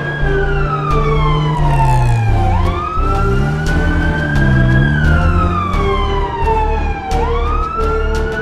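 Ambulance siren wailing, slowly falling and rising in pitch, about one fall-and-rise every five seconds.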